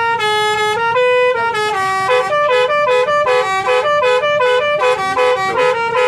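Basuri 'telolet' multi-tone horn playing a melody. A few held notes step between pitches, then from about two seconds in it plays a quick run of short notes, several a second.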